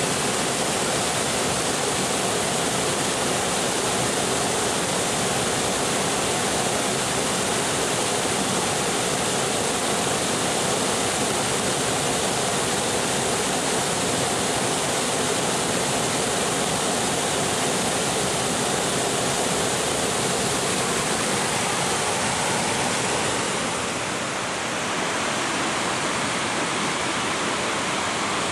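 Waterfall pouring over a wide rock ledge into a pool: a steady, loud rush of falling water. It dips slightly and changes a little in tone near the end.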